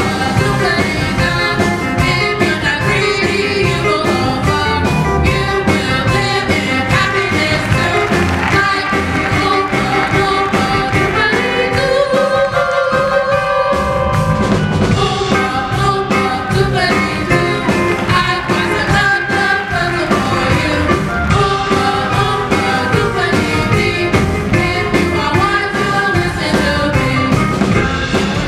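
A song with singing over instruments and a steady beat, with one long held note about halfway through.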